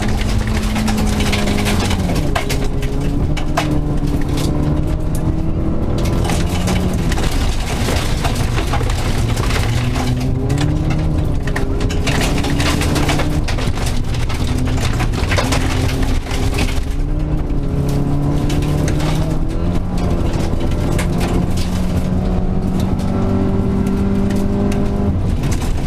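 Rally car engine heard from inside the cabin at speed on a gravel road. Its pitch climbs and drops again and again as the driver accelerates, shifts and lifts. A steady rush of tyre and gravel noise runs underneath, with many sharp clicks and rattles.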